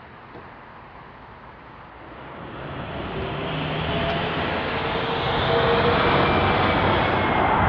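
Jet airliner's engines, a rushing sound with a faint whine, growing steadily louder from about two seconds in as the plane comes closer.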